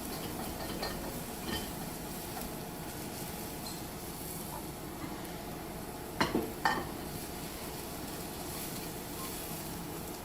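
Stir-fried cabbage and scallion filling sizzling steadily in the pan after the burner is shut off, with two quick knocks of a utensil against the pan a little past halfway.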